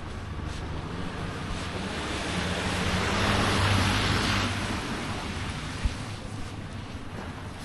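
A vehicle driving past: engine hum and tyre noise swell to a peak about halfway through, then fade away. A brief sharp click near the end.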